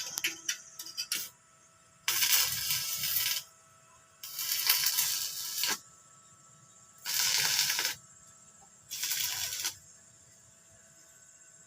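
Fireworks: rapid crackling in the first second or so, then four separate hissing bursts of about a second each, with short pauses between them.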